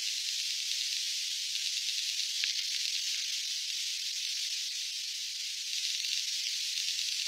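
Steady, high-pitched hiss with no low sounds at all, and a faint click about two and a half seconds in.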